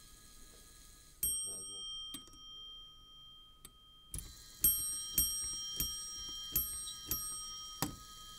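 The hammer of an electrically driven Meccano clock strike mechanism striking its bell. There is one ringing strike, two faint clicks, then a run of about seven strikes a little over half a second apart as the striking shaft turns, each strike ringing on.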